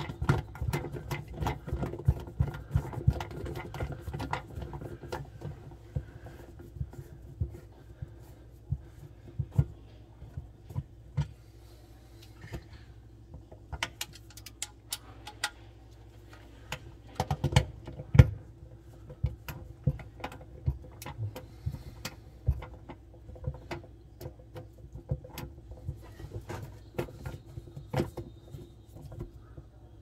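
Hand screwdriver driving small screws into the plastic sump and filter housing in the bottom of a stainless dishwasher tub, with irregular clicks and ticks of the screwdriver, screws and plastic parts being handled, over a faint steady hum.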